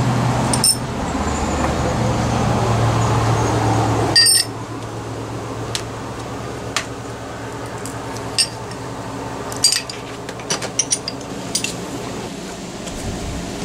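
Steel brackets, bolts and washers clinking as they are handled and set down: a dozen or so sharp metal clicks, several in quick succession near the end. A steady low hum runs under the first four seconds and stops abruptly.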